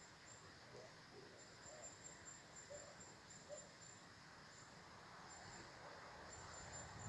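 Near silence at trackside: faint outdoor ambience with a thin, high, on-and-off whine and a few faint chirps. Near the end a low rumble of the approaching freight train begins to grow.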